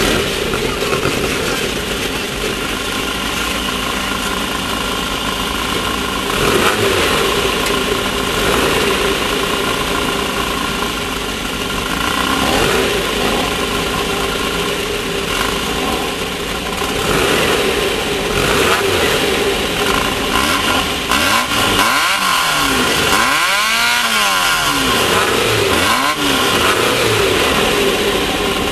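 Class 1600 off-road race buggy's air-cooled 1600 cc Volkswagen flat-four engine running hard and revving up and down, with pitch sweeps about two-thirds of the way through.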